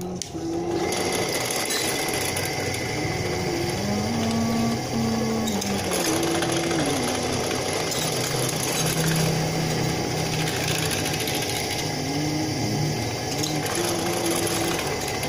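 Bench drill press motor running steadily while its bit bores holes into a grey block cut from an old washboard.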